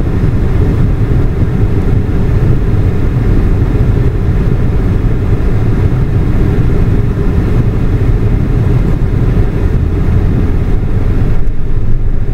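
Steady low rumble inside a taxi cab's cabin as the car idles and creeps forward.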